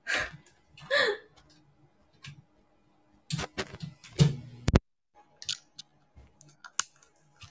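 Clicks and rustles of a phone being handled while its microphone is being fixed, after two brief vocal sounds at the start. The sound drops out completely for a moment after a sharp click about five seconds in, a sign of the stream's faulty audio connection.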